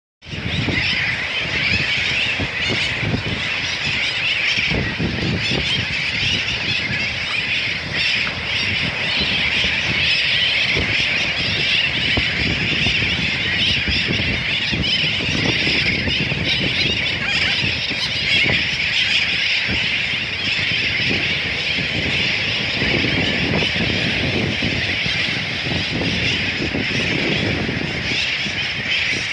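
Many birds calling at once in a continuous, dense chorus of squawks and squeals, over the low rumble of surf and wind on the microphone.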